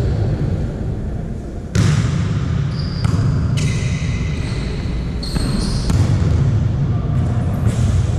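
Indoor volleyball play: a ball being struck and bouncing on the court, several sharp knocks, with brief high-pitched squeaks and the echo of a large gym hall.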